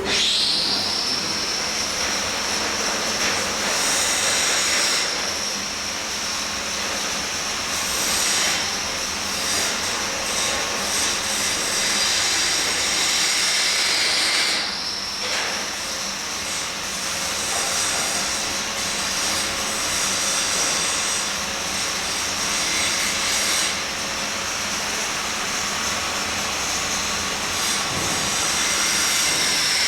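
Angle grinder running on steel with a high whine that sags as the disc is pressed into the work. It stops briefly about halfway through, then starts again.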